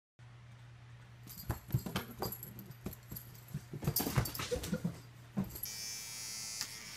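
Short whimpering animal cries among scattered clicks over a low hum. About five and a half seconds in, an electric toothbrush starts a steady high buzz.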